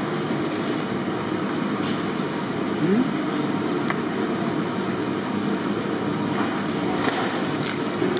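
A steady low rushing noise, with a short rising squeak about three seconds in and a few faint clicks.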